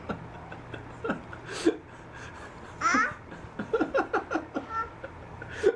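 Young children laughing and a toddler babbling during play, with a high squeal about three seconds in followed by a quick run of laughs.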